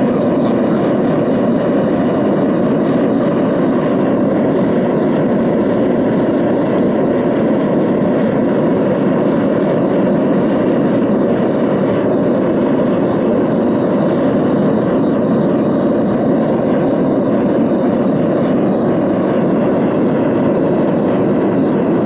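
Homemade propane burner firing into a ceramic-wool-lined furnace: a loud, steady rushing roar of the gas flame that holds even throughout.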